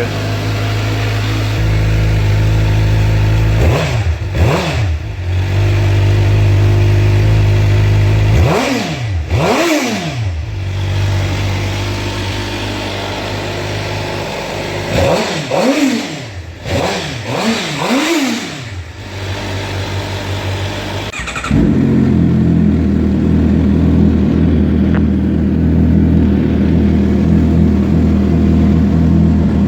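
Suzuki GSX-R750 inline-four sport bike idling, with the throttle blipped in three bursts of quick revs that climb and fall back to idle. About two-thirds of the way through, the sound switches abruptly to a louder, fuller idle: the same bike on the other of its two exhausts, stock and TOCE aftermarket.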